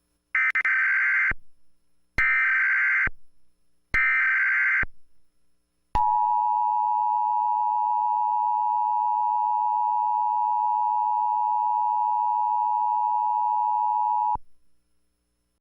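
Emergency Alert System broadcast alert: three short, harsh digital data bursts of the SAME header, each about a second long, then the steady two-tone EAS attention signal, held for about eight seconds before it cuts off suddenly.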